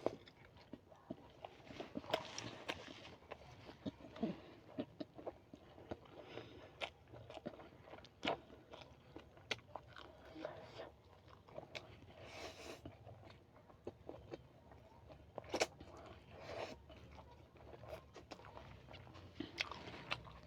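Close-miked eating: biting and chewing fried buffalo sausage, with many short, sharp mouth clicks at irregular intervals.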